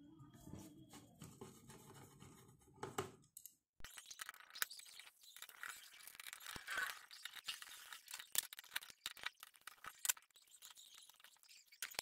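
Faint, scattered clicks, scrapes and small metal clinks of a screwdriver backing screws out of a copier control panel's sheet-metal frame, with hands handling the parts.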